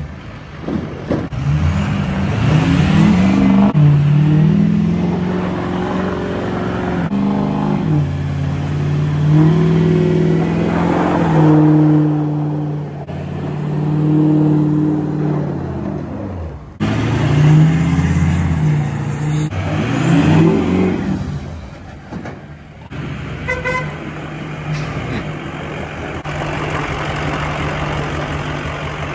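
Lifted Ford Super Duty pickup's engine revving up and falling back in several surges while the truck does donuts on snow, then settling to a steady idle near the end.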